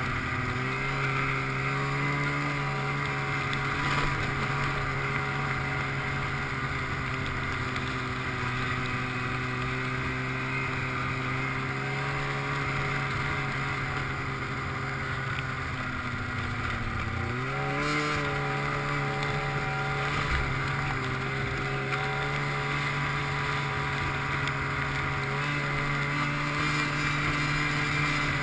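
Snowmobile engine running at a steady cruising speed; about 16 seconds in the revs sag, then climb quickly back up a second or so later.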